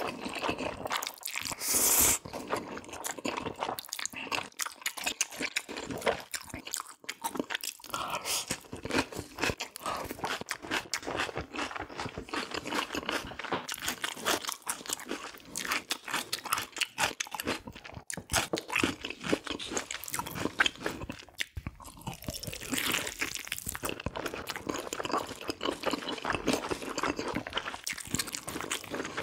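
Close-miked eating: a person chewing and biting food, with many small, irregular crunching clicks.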